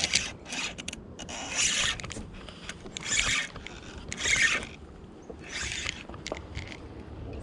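About five rhythmic swishing strokes in water, roughly one every second and a half.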